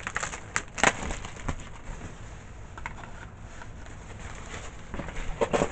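Rustling and crackling of bubble wrap and plastic packaging being handled, with a few sharper crackles about a second in and near the end.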